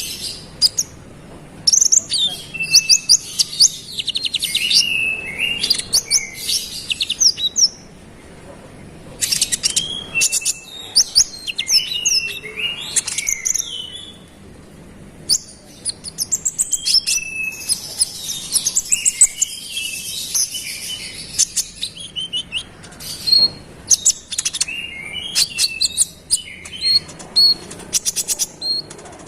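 Olive-backed sunbird (kolibri ninja) singing vigorously: bursts of sharp, high chirps and fast rattling trills. The phrases come in runs, with short pauses about a third of the way through and again near the middle.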